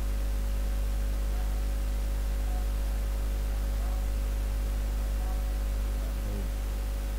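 Steady electrical mains hum with a hiss under it, running without change. A faint voice is heard briefly about six seconds in.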